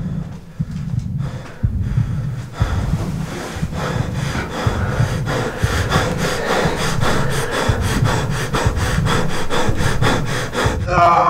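Film sound design: a low pulsing throb under a fast, rasping rhythmic noise that builds and thickens, then cuts off suddenly near the end.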